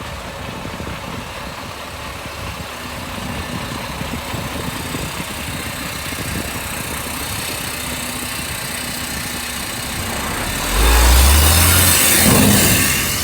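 Heavy diesel engine of earthmoving machinery running steadily. It grows much louder about eleven seconds in, with a deep rumble and a rush of noise for about two seconds, then eases off.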